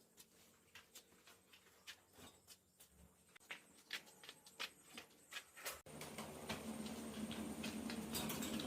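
Scattered light clicks and taps. About six seconds in, the sound changes abruptly to a steady low hum with background noise.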